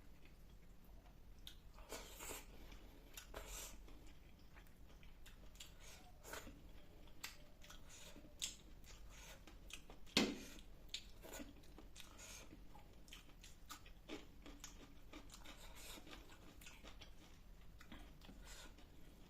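A person eating a spicy fish curry, rice and salad meal, chewing with scattered small crunches and mouth clicks. The loudest crunch comes about ten seconds in.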